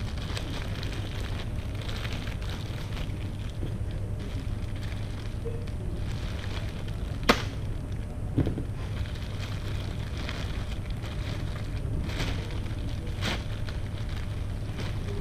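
Plastic packaging crinkling and rustling as a parts package is unwrapped by hand, with a sharp click about seven seconds in and a softer one a second later, over a steady low hum.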